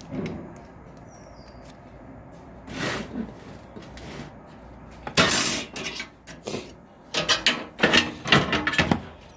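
Computer case and parts being handled: irregular knocks and clattering of hardware, loudest about five seconds in and in a run of sharp knocks near the end.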